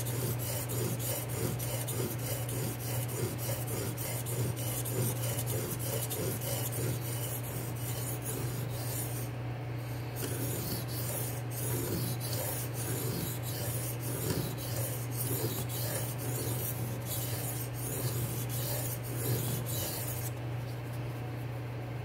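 A D2 steel knife blade, clamped in a DMT aligner guide, scraped back and forth across a bench stone in quick, even strokes, grinding the bevel to raise a burr along the edge. The strokes pause briefly a little under halfway and stop shortly before the end, over a steady low hum.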